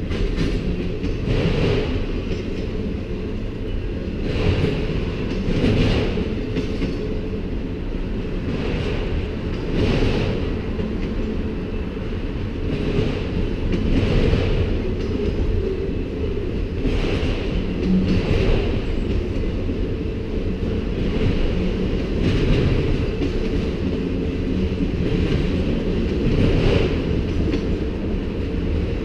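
Freight train of autorack cars rolling steadily past: a constant rumble of steel wheels on rail, with a sharp clack every second or two as wheel sets pass.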